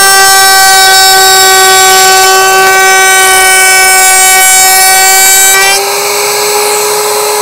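Electric router spinning at high speed in a router table, a loud steady whine. Its pitch sags slightly while the bit is under load cutting wood. About six seconds in the cut ends: the whine gets quieter and the pitch rises a little as the motor runs free.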